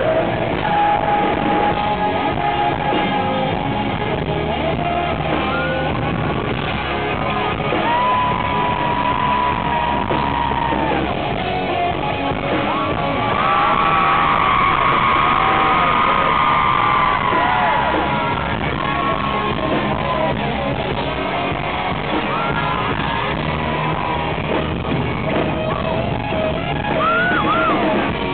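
Live rock band playing loud, with distorted electric guitars and a lead vocal sung and shouted over them.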